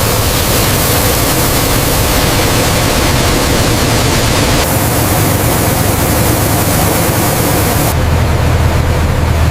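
A loud, steady rushing hiss over a low hum. Its tone changes abruptly about halfway through and again near the end.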